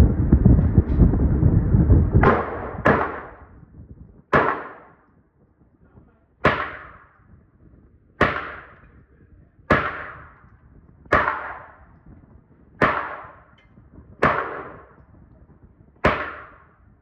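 Firearm shots fired one at a time, about ten in all, roughly a second and a half apart, each followed by a short echoing tail. A loud rushing noise fills the first two seconds before the shooting starts.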